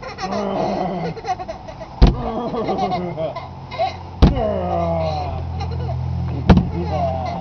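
Windshield squeegee knocking against the car's windshield glass three times, about two seconds apart, heard from inside the car. Between the knocks a small child squeals and laughs.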